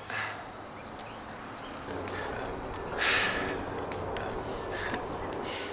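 Cricket chirping in a regular, evenly spaced high-pitched pulse that comes in about two seconds in, over a steady background hiss. A brief louder rush of noise about three seconds in.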